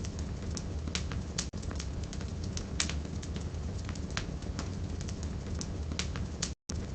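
Wood fire burning in a fireplace: a steady low rumble and hiss with sharp, irregular pops and crackles from the burning firewood. The sound cuts out completely for a split second near the end.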